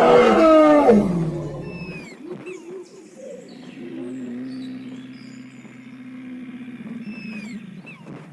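Sound-designed dinosaur roar, loud, sliding down in pitch and fading over the first two seconds, then a quieter long low call held steady, with a few short high chirps falling in pitch over it.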